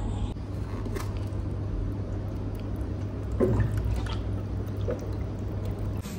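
Water running from the cold tap of a Premium top-load water cooler into a thin plastic cup, filling it. A steady low hum runs underneath.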